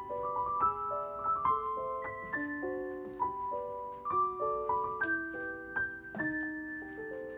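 Background music: a light piano melody of single notes, several a second.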